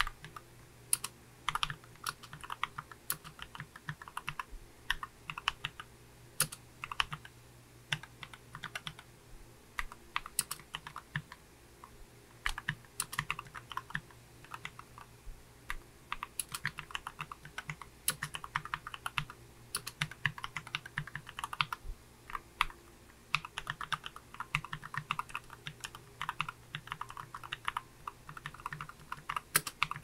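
Continuous typing on a Redragon K589 low-profile mechanical keyboard with linear Outemu Red switches, tape-modded and fitted with low-profile PBT doubleshot keycaps: rapid key strokes in quick runs with short pauses between them.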